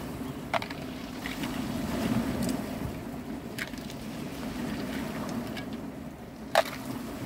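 Small waves washing steadily on a pebble shore, with a handful of sharp clicks as steamed mussel shells knock against the pan and tongs while they are lifted out; the loudest click comes near the end.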